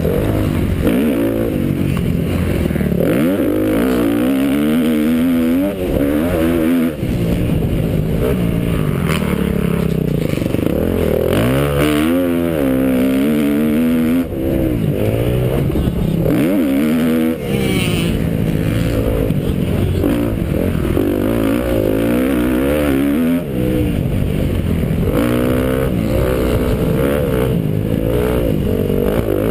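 KTM SX-F four-stroke motocross bike's engine, heard from a camera mounted on the bike, revving up and down over and over as it is raced around the track. There are short dips where the throttle is chopped, and wind and track noise run beneath it.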